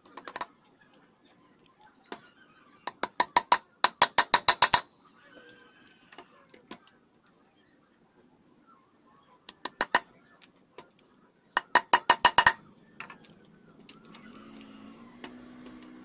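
Claw hammer driving nails into wood, in several quick runs of sharp, ringing strikes, about six a second, with pauses between. A faint low hum comes in near the end.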